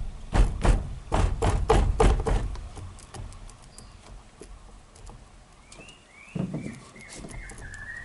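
Repeated knocks on a Suzuki Katana's steering wheel, struck to loosen it off the steering shaft once its nut is out: about eight sharp blows in quick succession, then a few lighter knocks.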